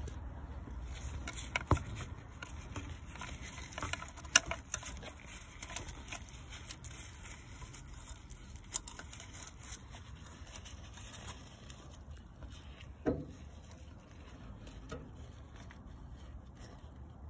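Scattered light clicks and taps, a few sharper than the rest, over a low steady background rumble.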